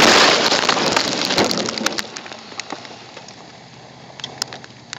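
Car collision heard from inside the car: a sudden loud crash of impact that dies away over about two seconds into scattered clicks and crackles.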